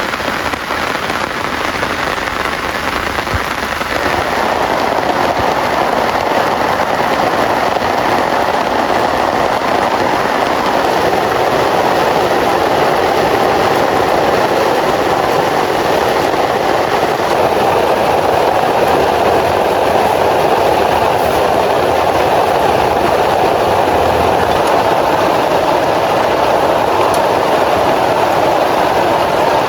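Heavy rain pouring steadily, growing louder about four seconds in.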